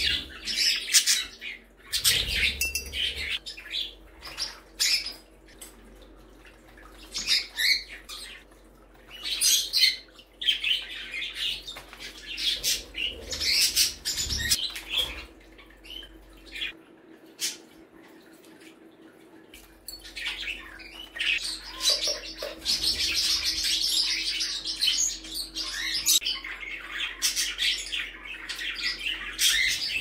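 Pet budgerigars and other small parakeets chirping and chattering, with a busier stretch of continuous warbling chatter about two-thirds through.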